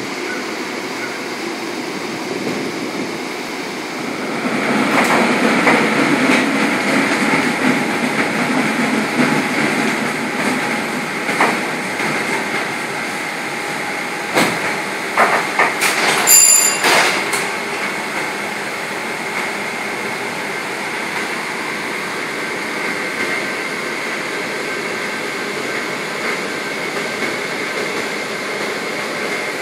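Restored PCC streetcar heard from on board: a steady hum of motors and steel wheels on rails. Several clacks come about halfway through, along with one short bright ding.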